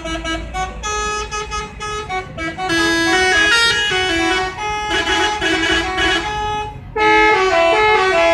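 Bus telolet horns: multi-tone air horns playing quick stepping tunes, several sounding over one another. They grow louder about a third of the way in, break off briefly, then start again loudly near the end.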